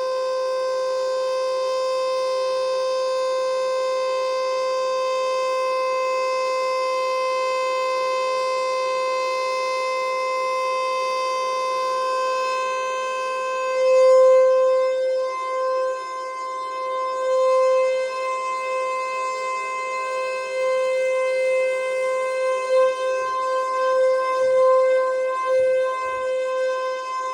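Federal Signal Eclipse 8 electronic outdoor warning siren sounding a steady, unchanging alert tone during a siren test. From about halfway through, its loudness swells and dips while the pitch stays the same.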